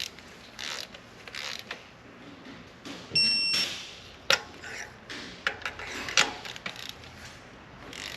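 Hand tools working on spark plugs: scattered ratchet clicks and metal knocks as the plugs are tightened, with one short, high electronic beep about three seconds in.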